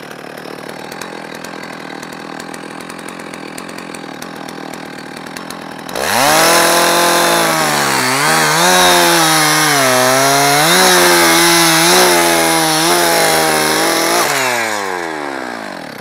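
Stihl chainsaw idling, then opened up about six seconds in and cutting through a log, its pitch dipping and recovering under load. Its chain is one the owner says has gone dull. Near the end the engine winds down in pitch and dies away.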